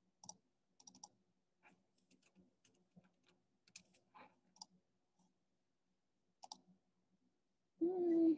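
Faint, scattered computer keyboard keystrokes and mouse clicks, sparse single taps, then a short voiced hum near the end.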